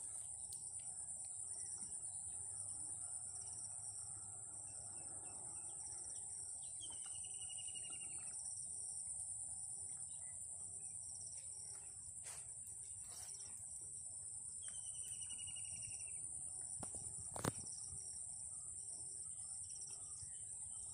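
Outdoor ambience of a high, steady insect drone with birds calling: a short falling call comes twice, over repeated brief higher notes. A single sharp click about three-quarters of the way through is the loudest sound.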